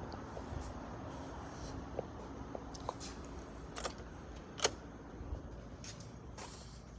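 Handling and walking noise on a hand-held phone: scattered light clicks and knocks over a low steady rumble, with one sharper click a little past halfway.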